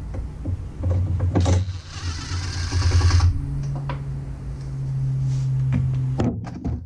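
DeWalt cordless impact driver backing out a 5/16 battery hold-down bolt: a rattling hammer from about one to three seconds in, then the tool spins more steadily for about three seconds. A few sharp knocks near the end.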